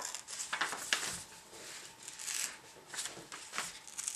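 A sheet of paper rustling and crinkling as hands handle and press it flat, in a string of irregular crackles.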